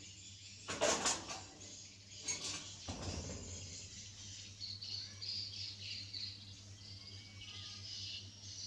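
Birds chirping and twittering in the background, with a few short, louder noises in the first three seconds.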